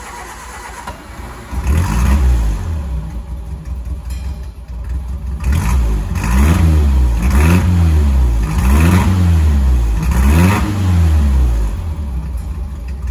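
Ford Anglia's four-cylinder engine running just after a cold start. Its revs climb in the first two seconds, then it is blipped up and down four times in quick succession, and it drops back to a lower, steadier speed near the end.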